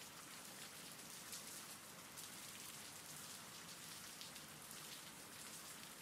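Faint, steady rain: an even hiss with scattered light drop ticks.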